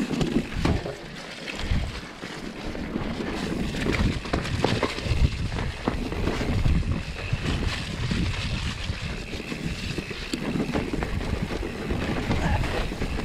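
Wind buffeting the microphone: an uneven low rumble, with scattered knocks and rustles.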